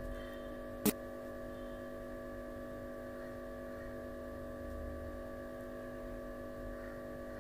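Steady electrical hum made of several held tones, with a single sharp click about a second in.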